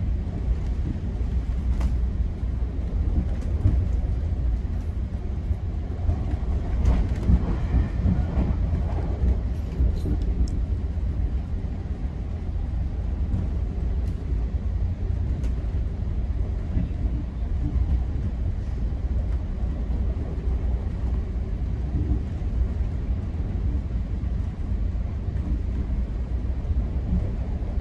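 Steady low rumble of a GO Transit bilevel passenger coach running along the track, heard from inside the coach, with scattered faint clicks from the wheels and rails. The noise swells briefly about seven seconds in.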